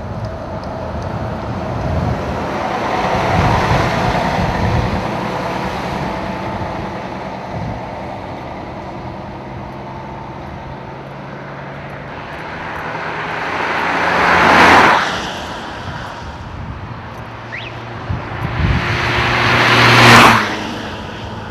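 Road traffic passing close by: a Mercedes-Benz coach goes past with its diesel engine running, then two more vehicles pass, each building to a loud whoosh that cuts off sharply, about five seconds apart.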